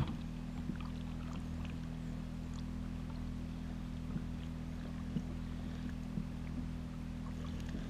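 A steady low hum over faint water sounds from a kayak drifting on a lake, with a few light knocks scattered through.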